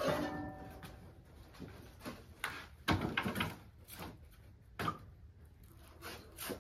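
Firewood bundling work: a short squeaking scrape at the start, then scattered knocks and clunks of wood and equipment being handled.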